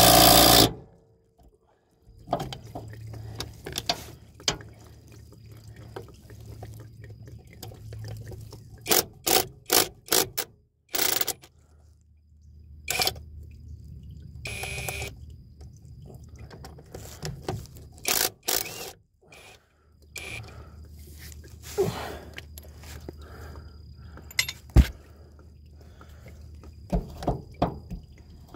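Cordless power tool running in short bursts as the transmission's tailshaft housing bolts are loosened, with the longest, loudest burst at the very start. Clicks and knocks of tool and bolts come in between, and a steady low hum runs underneath.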